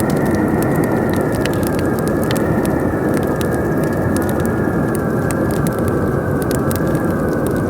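Campfire crackling with frequent sharp pops over a steady roar of howling wind, whose thin, high whistle drifts slowly down in pitch.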